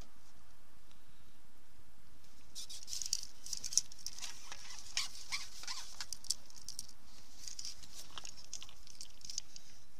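Close rustling and light clicking from hands handling a fishing pole and tackle, starting a few seconds in and fading near the end.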